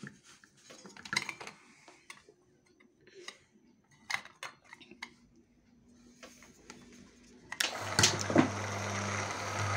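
Metal clicks and knocks as the aluminium fan cover of a Kairos electric motor is handled and fitted back on. About three-quarters of the way through, the motor is switched on and runs with a steady hum and a rush of air from its cooling fan.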